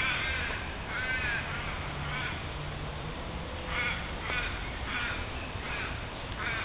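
Crows cawing, a run of short harsh caws repeated irregularly, roughly one every half second to second.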